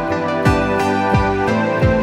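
Background music: sustained chords over a steady beat of deep drum hits.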